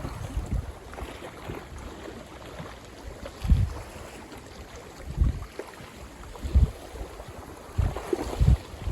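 Strong gusty wind buffeting the microphone in irregular low rumbles, about half a dozen times, over a steady wash of wind-driven waves on the lake.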